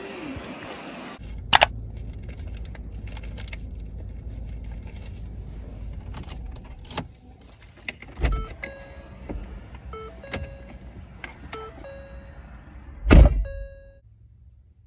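Inside a parked car at a fuel pump: a steady low rumble with scattered clicks and three loud knocks, the last and loudest near the end. In the second half come several short electronic beeps.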